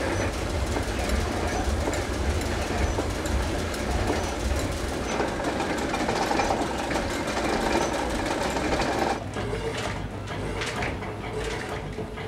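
Water-powered mill machinery running: flat belts over pulleys and wooden boxwood cogs clattering in a dense, rhythmic racket over a low rumble. About nine seconds in it drops to a quieter, sparser clatter.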